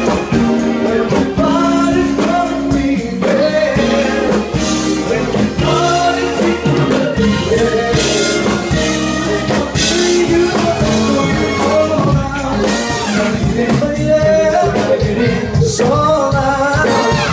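A live funk band playing: a singer over a horn section of saxophone and trombone, with keyboard and a steady rhythm section beneath.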